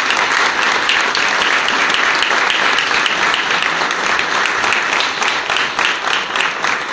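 A small group of people applauding steadily, with individual hand claps standing out.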